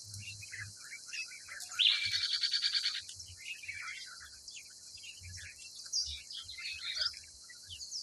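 Lories chirping and squawking, with short calls scattered throughout. About two seconds in comes one loud, harsh, rapidly pulsed screech lasting about a second.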